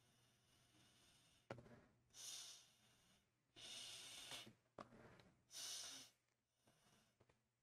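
Three soft puffs of breath blown through a straw to push wet acrylic paint across a canvas, each a brief hiss of air.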